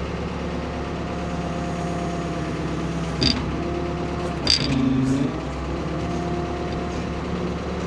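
Ford P-42 excavator's engine running steadily under hydraulic load while the bucket pushes over a dead spruce, its note sagging briefly about four seconds in. Two short, sharp cracks come about three and four and a half seconds in.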